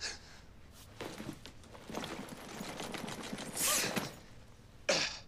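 Rustling and small knocks as a man shifts about with a leather shoulder bag, with a breathy whimper and then a sharp, distressed breath near the end.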